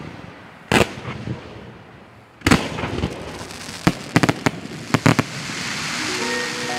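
Fireworks going off: a series of sharp bangs, the loudest about two and a half seconds in and several in quick succession around four and five seconds in, followed by a steady hiss. Chime-like music comes in near the end.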